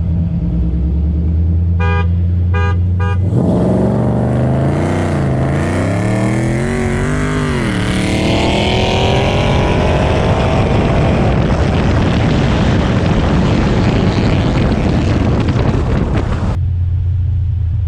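Hemi V8 idling with a low steady hum, then three short beeps, then a launch: the engine at full throttle climbing in pitch and dropping back at several quick upshifts as the car accelerates, staying loud until it cuts abruptly back to a low steady hum near the end.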